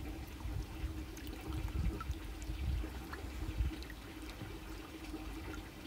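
Quiet trickling and dripping of water from a fish net lifted out of a plastic tub, with a faint steady hum underneath.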